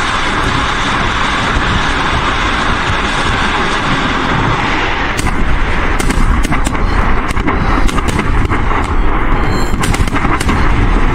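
Salvo of rockets launching from multiple rocket launchers: a steady rushing roar of rocket motors, joined about five seconds in by a rapid string of sharp cracks and bangs that are louder than the roar.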